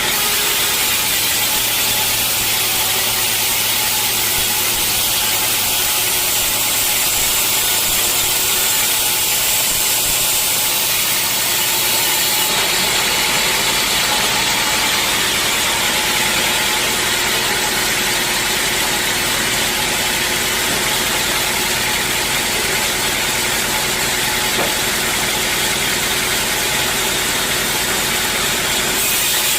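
Sawmill saw machinery running steadily: a loud hiss over a constant hum, which changes character abruptly about twelve seconds in.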